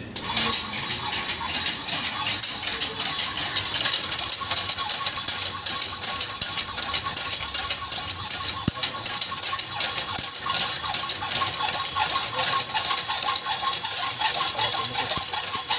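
Homemade motor-driven power hacksaw switched on and cutting a 40 mm hollow metal rod held in a vice: a steady, fast rasping rattle from the blade's back-and-forth strokes over a steady motor whine, starting suddenly.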